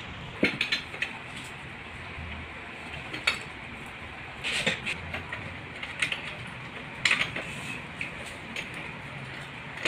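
Scattered light metal clinks and taps, about half a dozen, from screws and the chrome-tube footrest frame of an office chair being handled during assembly.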